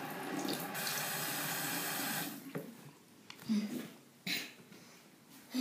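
Water running in a steady stream for about two and a half seconds, then stopping, followed by a few short separate sounds.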